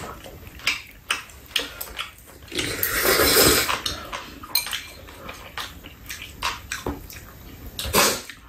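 Ramen noodles being slurped and chewed, with one long loud slurp about three seconds in, and light clicks of chopsticks and spoons against bowls.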